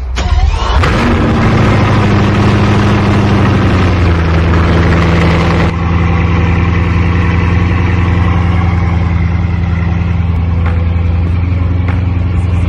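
Bugatti Divo's quad-turbo W16 engine starting up and running. Its revs hang high at first, then drop to a steady idle about four seconds in.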